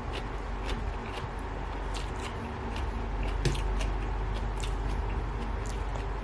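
Scattered small clicks, taps and squishy handling noises of ingredients being prepared by hand, over a steady low hum.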